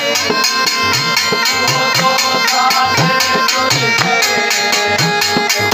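Saraiki jhumar folk music: a been (reed pipe with a drone) playing a reedy, ornamented melody over a dhol drum beating a steady dance rhythm.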